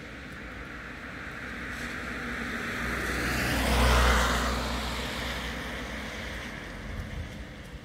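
A car driving past on a wet road, its tyres hissing on the wet asphalt over a low engine rumble. It grows louder to a peak about four seconds in as it passes, then fades away.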